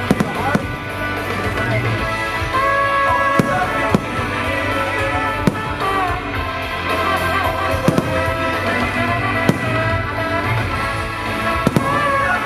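Fireworks going off in a show, about ten sharp bangs at irregular intervals, over loud music played for the display.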